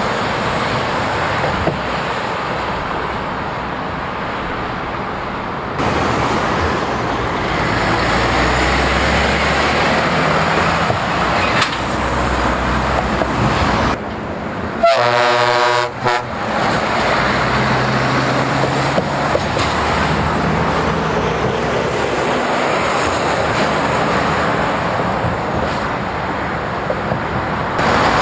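Heavy trucks passing on a motorway: tyre and diesel engine noise. About halfway through, a truck horn sounds once for about a second.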